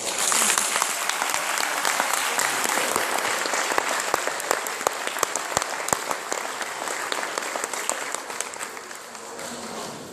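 Audience clapping, breaking out all at once as the choir's song ends and dying down near the end.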